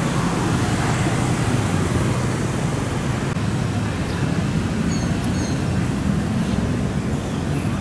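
Street traffic: vehicle engines running with a steady low rumble.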